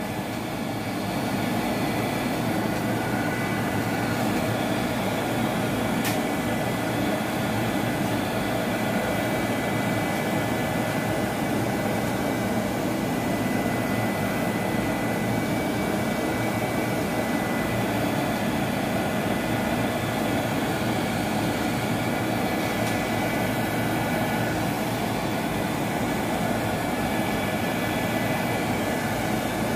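Handheld craft heat gun running with a steady whir and a faint whine, blowing hot air to dry wet marbled paint.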